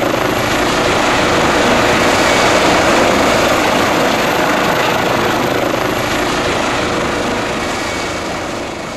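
Swiss Air Force EC635 helicopter running with its rotor turning, a loud steady whir of rotor and turbine with a faint whine, easing off slightly near the end.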